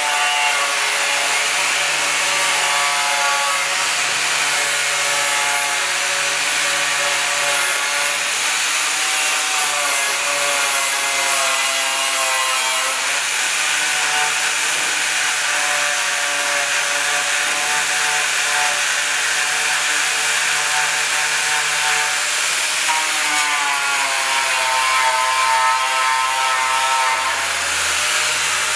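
A handheld power tool runs continuously under load, with a hissing, abrasive sound and a whine that drifts slowly in pitch, shifting about halfway through and again near the end.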